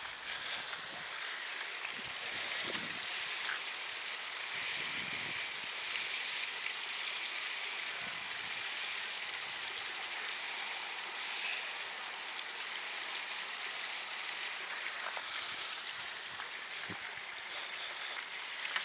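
River water flowing, a steady, even rushing hiss.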